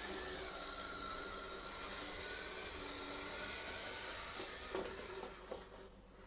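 Neato XV11 robot vacuum running as it makes its way back to its charging dock: a steady hiss with a high thin whine. A couple of light knocks come near the end, and then the running sound dies away.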